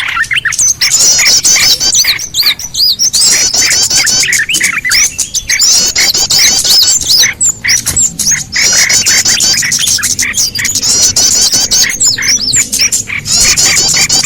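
Bird-lure recording of many small birds calling: dense, rapid high chirps and trills with rows of repeated notes and quick up-and-down whistled glides, broken by short gaps every couple of seconds. It is a trapping call track meant to draw small songbirds in.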